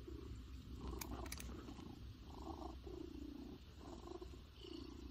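Domestic cat purring steadily while its back is scratched, the purr swelling and easing with each breath about once a second.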